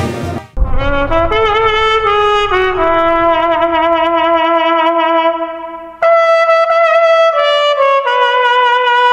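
Music: a solo trumpet playing a slow melody with vibrato on long held notes. One phrase fades out about five and a half seconds in, and a new phrase starts sharply at six seconds, stepping down in pitch toward the end.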